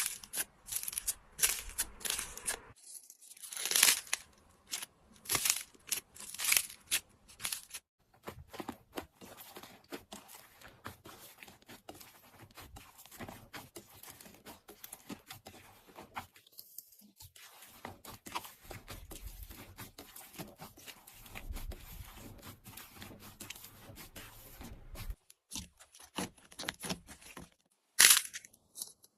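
Slime being worked by hand, making many quick sticky crackles and pops. The crackles are louder and denser for the first several seconds, then softer, with a couple of loud pops near the end.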